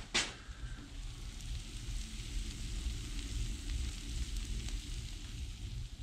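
Wood fire of burning scrap wood in a brick pizza oven, hissing and crackling steadily with a low rumble. One loud, sharp crack comes just after the start.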